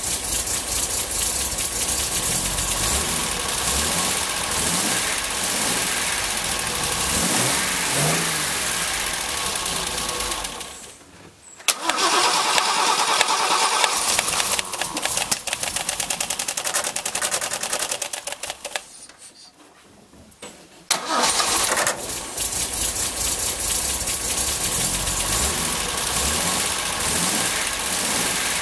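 MGC's straight-six engine running steadily on newly fitted electronic ignition. About ten seconds in, the sound breaks off and the same engine is heard running badly on deliberately detuned contact-breaker points, with a more uneven, pulsing beat. That sound falls away a little after 18 seconds, and from about 21 seconds the smooth running resumes.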